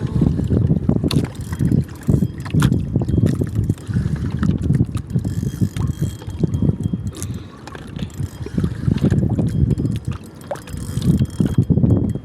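Uneven rumbling of wind and water noise, with scattered sharp clicks and knocks.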